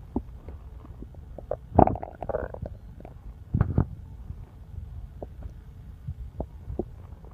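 Human stomach rumbling and gurgling: a low continuous rumble with two louder gurgles, one about two seconds in and one just past halfway, and scattered small pops.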